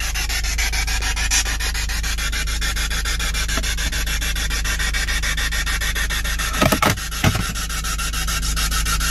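Steady low rumble and hiss inside a vehicle's cabin, with two brief loud knocks about seven seconds in.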